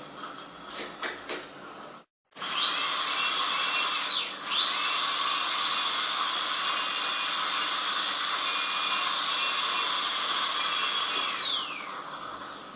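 Dentist's high-speed drill whining at a high, steady pitch. It spins up a little over two seconds in, dips and spins back up once, then holds before winding down near the end.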